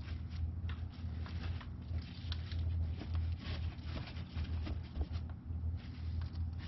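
Gloved hands handling damp cardboard and pressing it into moist worm castings: soft, scattered rustles and crackles, over a steady low hum.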